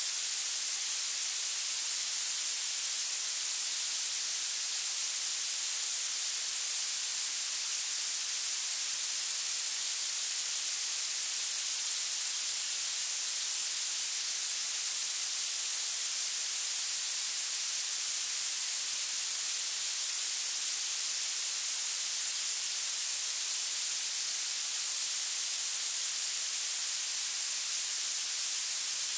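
Violet noise: a steady, unbroken electronic hiss, almost all sharp high treble with hardly any low end.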